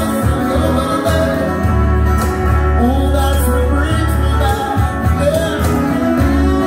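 Live band playing a country-rock song, with acoustic and electric guitars under a wavering saxophone lead line.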